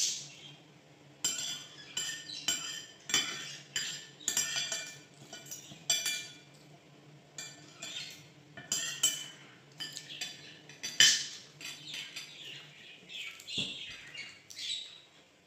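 Spoon and fork clinking and scraping against a plate as food is scooped up: a run of sharp, ringing clinks, roughly one every half second to a second.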